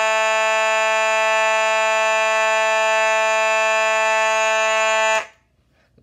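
Simplex fire alarm horn sounding one continuous, steady buzzing tone, not in march time. It is powered together with its 2903 light plate and cuts off suddenly about five seconds in.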